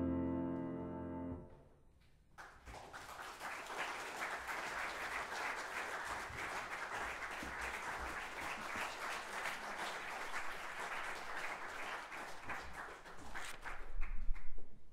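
The last held chord of a piece of concert music rings and stops short, and after a short pause an audience applauds steadily for about eleven seconds. Near the end a few heavy low thumps come through.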